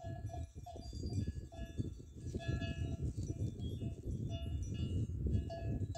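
Bells hung on grazing goats clanking irregularly, short ringing notes at the same few pitches repeating throughout, over a steady low rumble.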